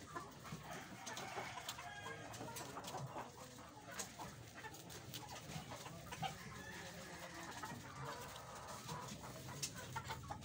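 Chickens clucking, with a few sharp light taps or clicks scattered among the calls.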